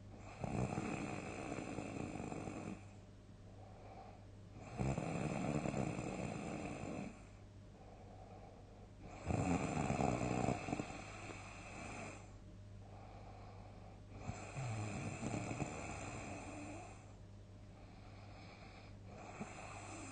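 A person snoring loudly in deep sleep, one long snore about every four to five seconds, each lasting about two seconds, with quieter breathing in between.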